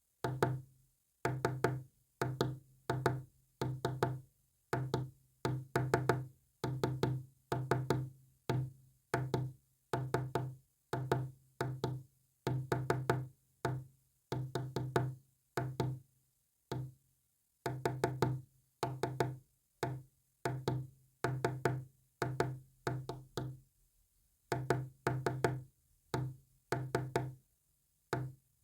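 A long sequence of short, low buzzing tones sent as Morse code. Each tone starts with a click and fades over about half a second, and they come in irregular groups broken by pauses.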